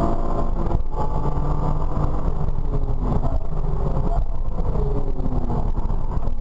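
Porsche Cayman R's flat-six engine heard from inside the cabin while lapping a race circuit, with a short break in the note about a second in and the pitch falling in the second half. Tyre and road noise run underneath.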